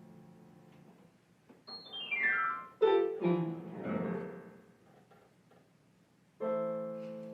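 Piano music: a held chord fades away, a quick downward run of notes sweeps down about two seconds in, a few louder notes follow, and a new chord is struck near the end and rings on.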